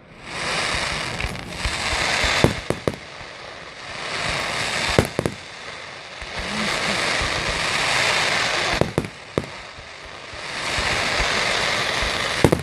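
Fireworks display: three long waves of dense crackling, broken by about six sharp bangs of shells bursting.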